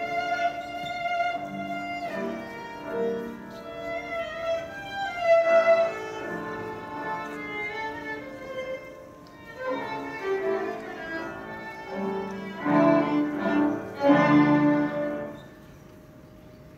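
Solo violin, bowed, playing a melodic passage. It grows into louder, fuller notes a little past halfway and drops into a brief pause near the end.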